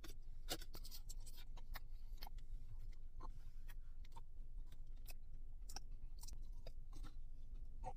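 Close-miked chewing of a sauce-dipped breaded chicken finger: a string of irregular soft crunches and wet mouth clicks, roughly three a second.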